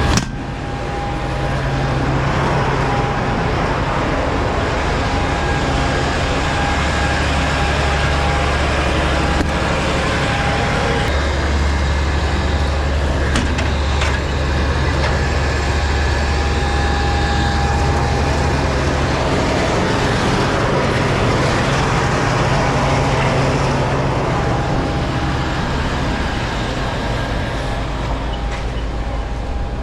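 Fire engine's diesel engine running steadily, a continuous low drone with a faint steady high whine over it.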